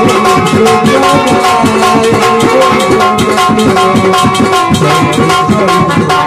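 Instrumental passage of a Hindi devotional bhajan. Hand drums and a rattling shaker keep a fast, steady beat under held melody notes.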